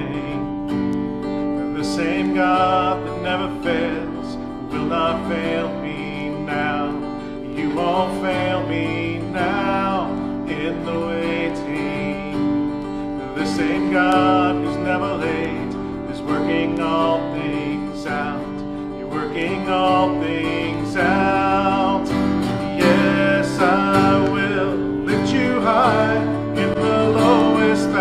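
A man singing a worship song and accompanying himself on a strummed acoustic guitar.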